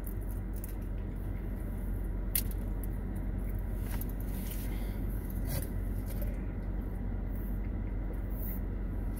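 Steady low hum of a car running, heard inside its cabin, with a few faint clicks and mouth sounds of eating.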